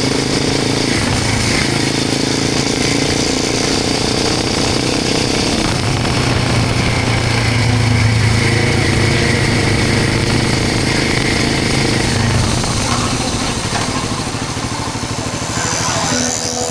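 Royal Enfield Himalayan 450's single-cylinder engine running steadily through a Norifumi Long aftermarket exhaust with its dB killer fitted, a deep bassy note that grows a little louder around the middle.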